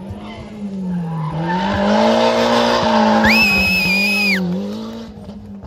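Rally car's engine revving up and down as it takes a roundabout, with a steady high tyre squeal lasting about a second just past the middle; the engine note drops away near the end.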